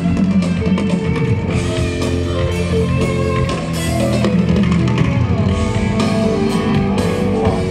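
Band music with guitar and drums played loud through a concert PA system during its sound check and alignment, heard out on the open stadium field.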